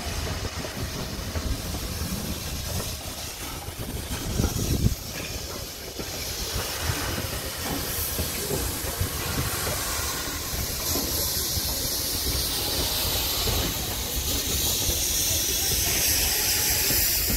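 SNCF 241 P 17 steam locomotive and tender rolling slowly over the rails, with a low rumble and a steady hiss of steam that grows louder in the second half. A brief thump about five seconds in.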